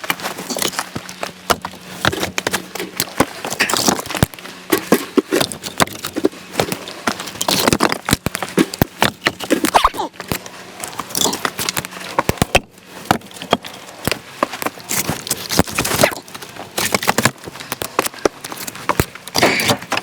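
Split firewood pieces knocking and clattering against one another in quick, irregular wooden knocks, as when logs are handled and stacked.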